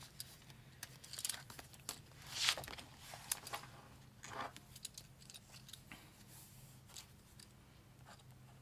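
Paper and plastic handling at a desk: light taps and clicks with a few short rustles, the loudest about two and a half seconds in and another a couple of seconds later, as spiral planner pages are turned and a cash binder's plastic pockets handled. A faint steady low hum runs underneath.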